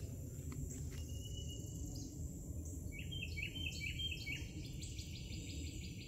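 A bird singing a quick run of repeated chirps, about six a second, from about halfway in, over a thin steady high tone and a low rumble.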